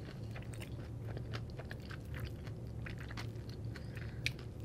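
Close-up chewing of a bite of fried potato latke with the lips closed: many small, irregular wet clicks and soft crunches. A low, steady hum sits underneath.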